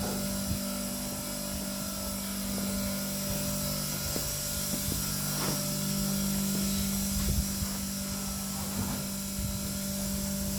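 Steady mechanical hum of a running machine, with a few light knocks and rattles over it.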